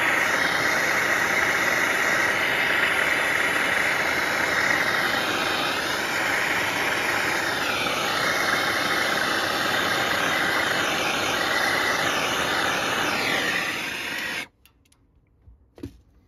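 MAPP gas hose torch burning with a steady hiss while it heats a joint on an aluminum AC coil for brazing. The flame shuts off abruptly about fourteen seconds in.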